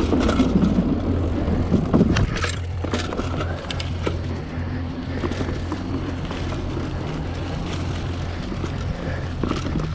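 Trek Marlin 5 mountain bike ridden fast over a leaf-covered dirt trail: tyres rolling over leaves and dirt, with rattles and sharp knocks from the bike over bumps, heaviest in the first couple of seconds, over a steady low rumble.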